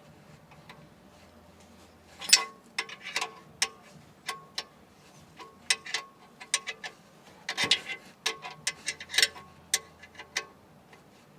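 Irregular series of sharp clicks and clinks from hard objects knocking together at uneven intervals, some leaving a brief metallic ring, busiest around the second half.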